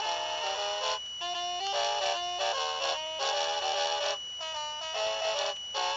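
2009 Hallmark Magic Snowman Band ornament playing its electronic Christmas tune through its tiny built-in speaker. It is a thin, bass-less melody of short notes with brief pauses, with a faint steady high whine underneath.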